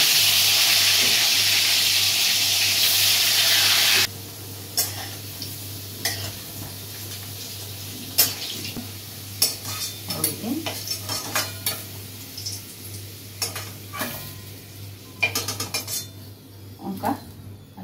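Pieces of food hitting hot oil in a metal kadai (wok) set off a loud sizzle that stops abruptly about four seconds in. After that a quieter frying hiss runs under the clinks and scrapes of a metal spatula against the pan as the pieces are turned.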